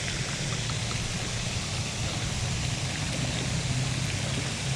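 Steady splashing rush of a pond's spray fountain, with a low steady hum beneath it.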